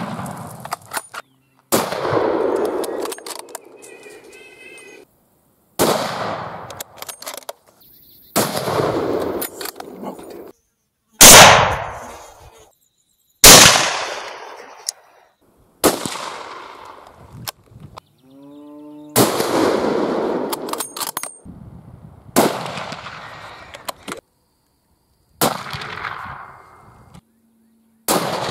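A series of about ten rifle shots at hogs, one every two to four seconds. Each is a sharp crack with a short echoing tail that cuts off abruptly.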